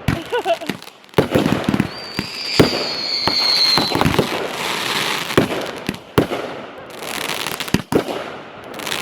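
Backyard fireworks going off: a string of sharp bangs and crackles, with a high whistle held for about two seconds, starting about two seconds in and falling slightly in pitch.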